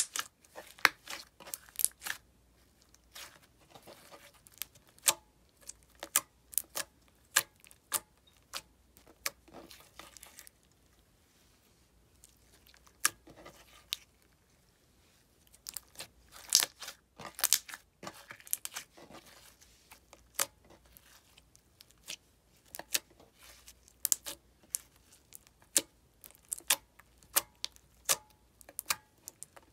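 Clear slime packed with small green seed and bugle beads being pressed, stretched and folded by hand, giving irregular sharp crackles and sticky pops, with a pause of a couple of seconds near the middle.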